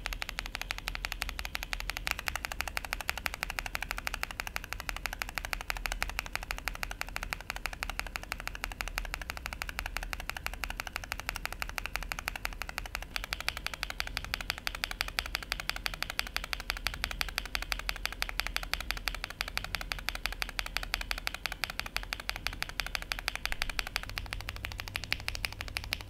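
Fast, continuous typing on a Tester68 mechanical keyboard fitted with lubed linear switches: a dense stream of keystroke clacks. The switch under test changes from Gazzew Boba LT to JWK Epsilon about two seconds in, to Durock POM about halfway, when the clack turns brighter, and to C3 Banana Split near the end.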